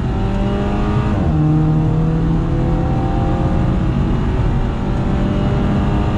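Audi A4 B9's turbocharged 2.0 litre four-cylinder (Gen 3) with a catless downpipe and a Vibrant Street Power muffler, heard from inside the cabin while accelerating under load. The engine note rises, drops with an upshift about a second in, then climbs steadily again in the next gear.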